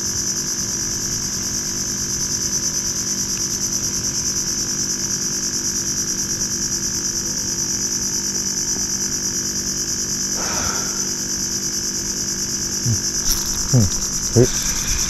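Insects in mangrove forest droning steadily at a high pitch, with a low steady hum underneath. Near the end a few short rising sounds cut in.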